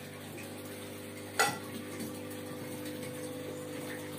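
Steady hum of aquarium pumps and aerators, with one sharp knock about a second and a half in.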